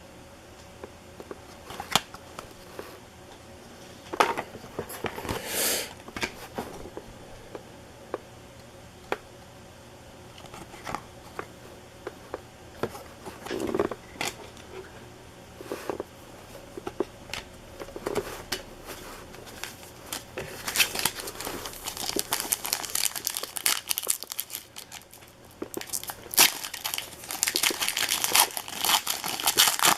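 Trading-card pack wrappers being torn open and crinkled, with scattered sharp crackles and short bursts of crinkling that grow denser and more continuous in the second half.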